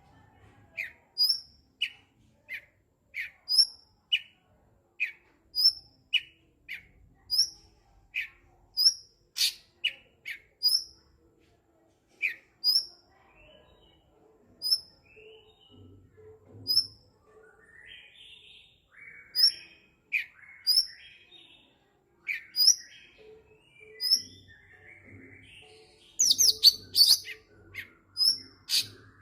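Cucak cungkok singing: a run of short, evenly repeated chirps, about one and a half a second, giving way to looser, more varied phrases and a louder, busier burst of song near the end.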